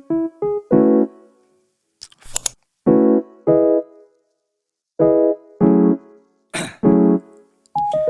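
Background music: short keyboard chords, each dying away with silent gaps between them, and a couple of brief noisy percussive hits.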